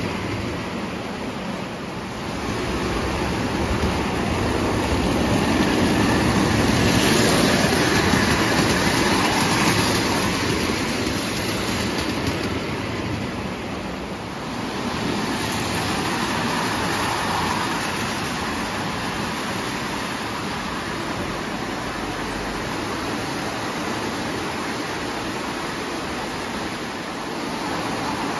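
Marx tinplate toy train running on three-rail O gauge tubular track: a steady rumble and clatter of wheels on the metal rails, swelling louder for several seconds early on, dipping about halfway through and then running on more evenly.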